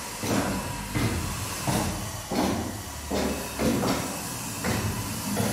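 Footsteps scuffing and crunching on a grit- and rubble-covered bare concrete floor, about one step every 0.7 seconds, over a steady hiss.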